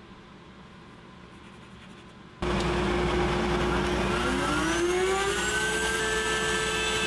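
After a quiet first couple of seconds, a table-mounted router and its dust collection start up loud and steady, with a steady hum. The router's motor winds up in pitch over about two seconds and then holds at full speed.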